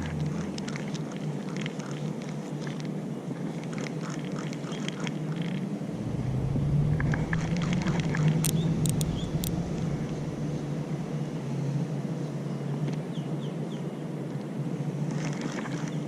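Outdoor ambience at the water's edge: a steady low rumble that swells from about six seconds in to about eleven, with scattered short clicks and a few sharp chirps about halfway through.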